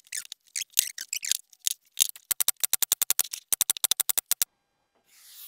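Pneumatic stapler firing staples into the wooden bars of beehive frames held in an assembly jig, a rapid run of sharp snaps about ten a second. Before it come a few scrapes and squeaks of the wooden slats being pressed into place by hand.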